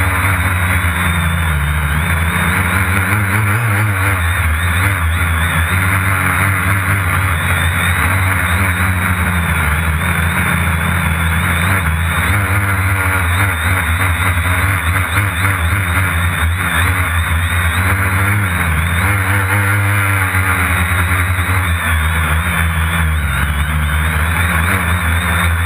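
Quadcopter's electric motors and propellers heard from a camera mounted on the drone itself: a loud, steady buzz whose pitch wavers up and down.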